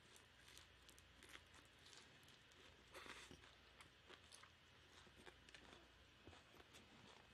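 Faint close-up chewing: soft, scattered crunches and wet mouth clicks from a mouthful of food, just above near silence.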